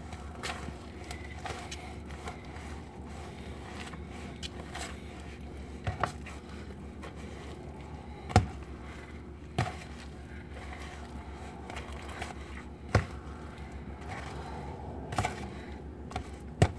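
Wooden spoon stirring stiff cookie dough in a plastic bowl: soft scraping, with a handful of sharp knocks of the spoon against the bowl, over a steady low hum.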